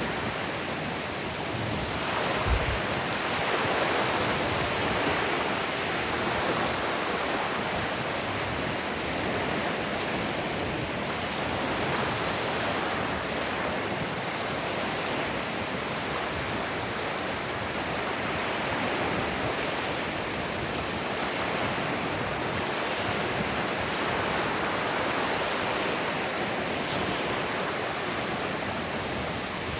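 Ocean surf washing onto a sandy beach in a steady, rolling hiss with gentle swells. A brief low thump sounds about two and a half seconds in.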